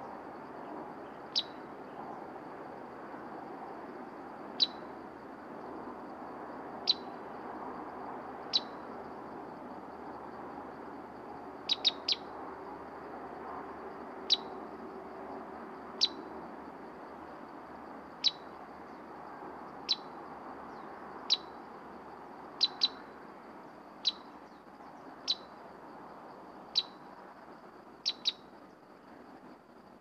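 Sooty-headed bulbul giving short, sharp single calls, one every second or two, some in quick pairs and once three in a row, over a steady faint high hiss.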